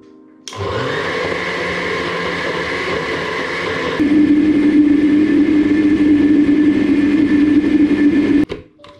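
Biovita countertop blender switched on, its motor spinning up and then running steadily as the blades puree roasted peppers and carrots into a thick cream. About four seconds in it gets louder, with a deeper steady hum. It stops abruptly near the end.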